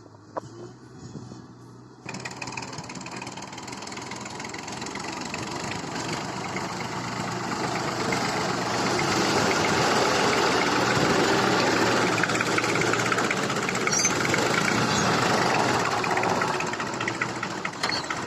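Tractor diesel engine running steadily, coming in abruptly about two seconds in and growing louder over the next several seconds before holding loud.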